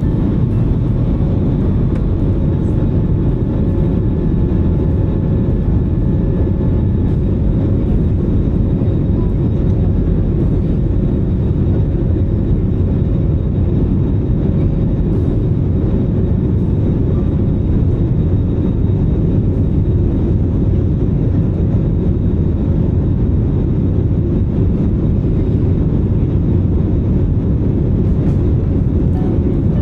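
Steady, loud cabin roar of an Airbus A320 airliner in flight, the deep drone of engine and airflow noise heard from inside the cabin, with a constant hum running through it.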